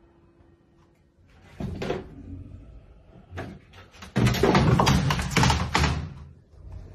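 Cat scrabbling in a plastic laundry basket on top of a dryer, with a thump about a second and a half in. About four seconds in, the basket tips off the machine and lands on the floor with a loud plastic clatter.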